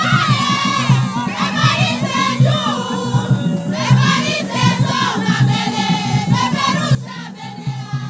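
Traditional Burundian drums beaten in a steady rhythm, with many voices singing and chanting over them. The sound grows quieter about a second before the end.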